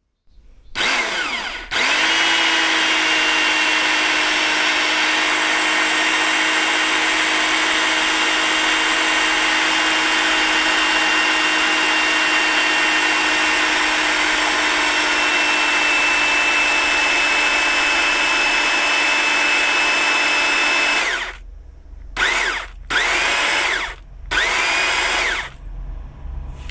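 Kyocera electric chainsaw running with no load: its motor spins up to a steady whine and holds it for about twenty seconds. Near the end it is switched off and triggered on again in several short bursts, each one spinning up.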